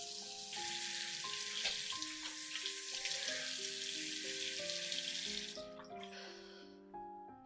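Bathroom sink tap running, a steady splashing hiss that cuts off about six seconds in, with slow, soft background music of held notes underneath.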